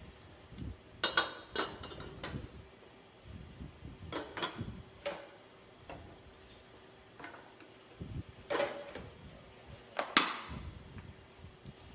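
Kitchen handling sounds: a handful of separate knocks and clinks of utensils and cookware, some with a short ring, the sharpest about ten seconds in.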